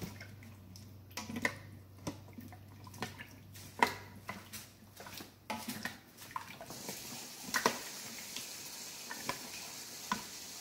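A spatula knocking, clinking and scraping against the stainless steel inner pot of an Instant Pot as watery soup is stirred, in irregular strokes. From about seven seconds in, a steady hiss joins it.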